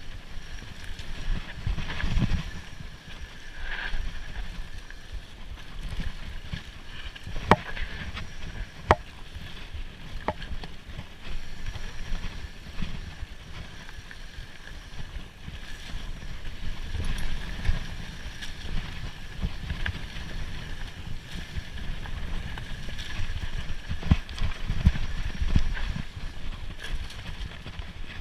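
Mountain bike being ridden along a dirt trail: a steady rumble of tyres and rattling, with a few sharp clacks a little after seven seconds, around nine seconds and around ten seconds in.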